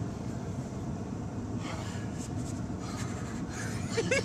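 Steady low rumble inside a running car. About four seconds in, a man laughs in a quick run of short bursts.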